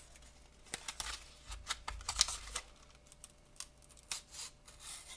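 Hanger pack of trading cards being picked at and torn by hand, its stubborn rip tab not giving: a scatter of sharp clicks and short crinkling rustles of the wrapper, the loudest a little past two seconds in.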